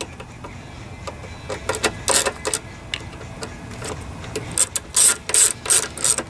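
Socket ratchet clicking as it tightens the screws of the air filter base onto a lawn mower carburetor: a few clicks and handling knocks about two seconds in, then steady ratcheting strokes, about two or three a second, near the end.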